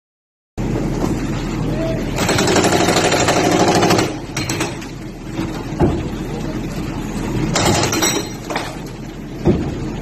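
JCB backhoe loader working at a building's stone facade: its engine runs while the arm knocks at the masonry, giving sharp knocks and two louder noisy stretches. Voices are heard alongside.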